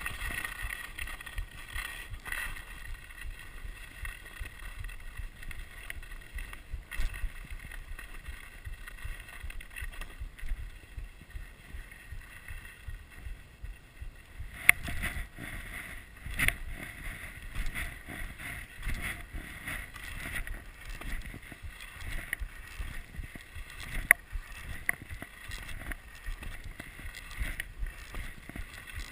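Skis sliding and scraping over packed snow with wind buffeting the microphone, a steady rushing rumble that grows rougher and louder about halfway through, with a few sharp knocks.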